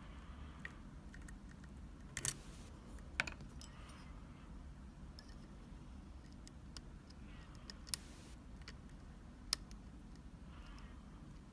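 Metal lock picks clicking and tapping in a Sargent Keso mortise cylinder as it is being picked: scattered sharp clicks, the loudest about two, three, eight and nine and a half seconds in.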